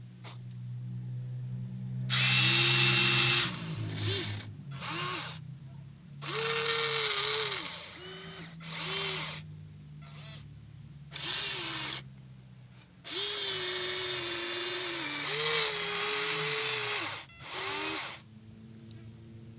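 Small electric gear motors of a Huina 1593 RC excavator whirring in about eight short, sharply starting and stopping bursts as its functions are worked. The pitch sags and recovers under load, with a faint steady low hum underneath.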